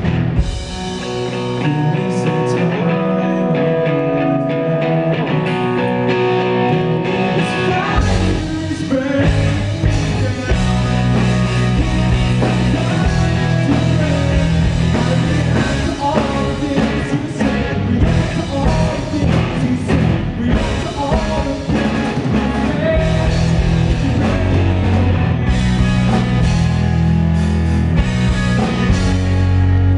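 Rock band playing: electric guitars and a drum kit, with the low bass end coming in about eight seconds in.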